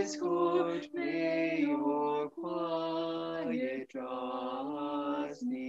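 A small mixed group of voices, women and a man, singing a slow hymn in harmony: long held notes in short phrases with brief breaks between them.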